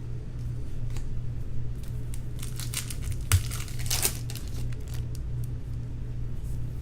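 Trading-card pack wrapper being crinkled and torn open, in a few crackly bursts around the middle, over a steady low hum.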